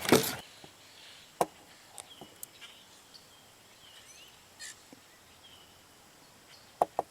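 Handling clicks and knocks of a camera being lined up on a rifle scope: a loud rustle just at the start, a sharp click about a second and a half in and two quick clicks near the end. Faint bird chirps between them.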